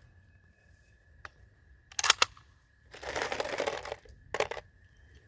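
Gear being handled between drills: a few sharp clicks, in two close pairs, and about a second of rustling. These are handling sounds, not gunshots.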